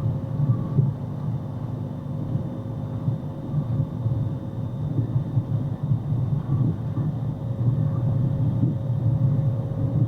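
Steady low rumble of a vehicle, flickering in level with no horn sounding.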